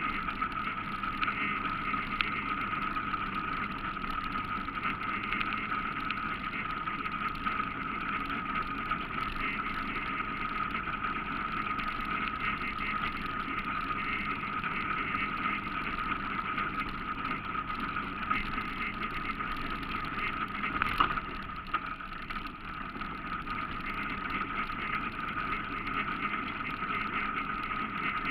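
ATV engine running steadily while riding over rough ground, heard from a camera mounted on the machine, with a steady high whine throughout. A single sharp knock about three-quarters of the way through.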